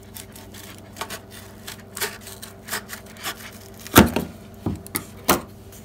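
Scissors cutting through a stiff cardboard tube (a wrapping-paper tube): a series of snips and crunches, roughly one every half second to second, the loudest about four seconds in.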